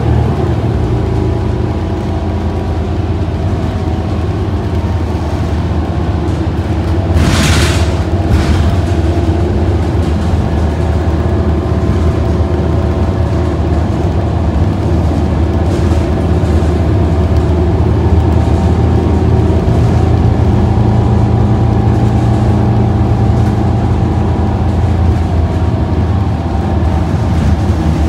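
Cabin sound aboard a New Flyer Xcelsior XD40 diesel bus under way: the steady low drone of its Cummins L9 diesel engine and drivetrain with road noise, and a brief hiss about seven seconds in.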